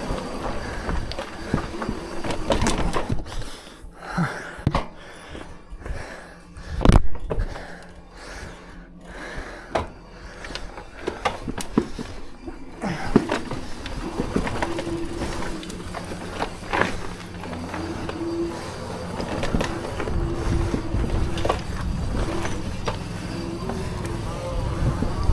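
Folding fat-tyre e-bike ridden over rough ground: tyres rolling, with scattered knocks and rattles from the bike as it takes bumps. The loudest knock comes about a quarter of the way in, and from about halfway a steady low hum joins in.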